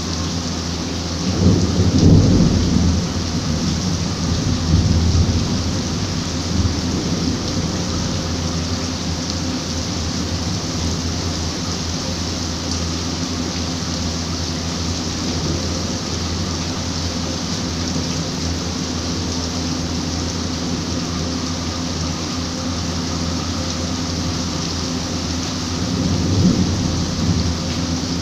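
Steady rain hissing, with low rumbles of thunder about two and five seconds in and again near the end.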